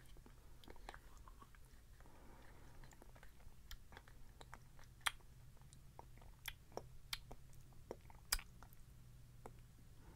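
Eating yogurt with a spoon from its cup: faint wet mouth sounds and scattered sharp clicks of the spoon against the cup and lips, the loudest about five and eight seconds in, over a faint steady low hum.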